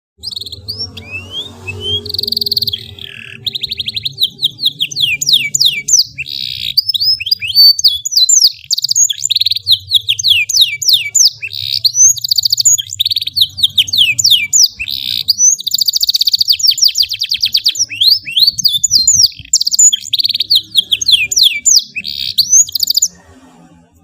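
Domestic canary singing a long, unbroken song of fast trills and quick downward-sweeping whistles. It breaks off suddenly near the end.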